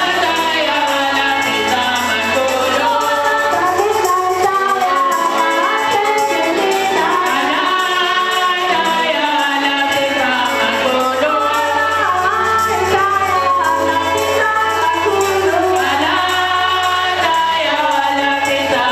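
A church song: women's voices singing with music, steady and continuous.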